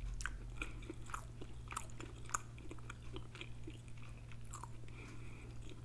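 A person chewing food close to the microphone: soft scattered mouth clicks and smacks over a faint steady hum.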